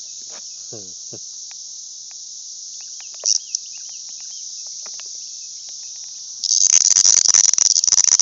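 Steady high-pitched insect chorus, with a much louder, rasping, pulsing cicada buzz close by starting about six and a half seconds in.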